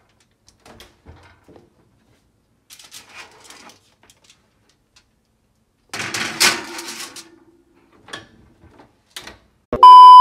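Kitchen handling clatter, then about six seconds in an oven door opening and a foil-lined baking tray sliding onto the metal rack with a brief scraping squeal. Near the end a loud, steady beep of a TV test-pattern tone cuts in abruptly.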